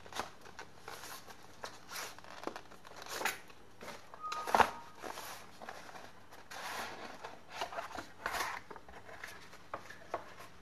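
Cardboard packaging being handled: a printed sleeve slid off a black cardboard box and the box lid opened, giving a run of rustles, scrapes and light knocks, with one sharp knock about halfway through.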